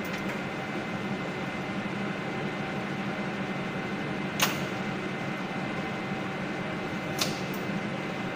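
Lathe running steadily at 345 RPM, a constant machine hum, with two sharp clicks, one about four seconds in and one about seven seconds in.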